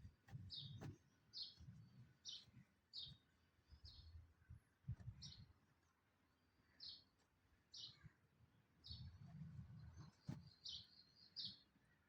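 Faint short high-pitched chirps, repeating about every half second to a second with a few pauses, from a chirping bird or insect in the background.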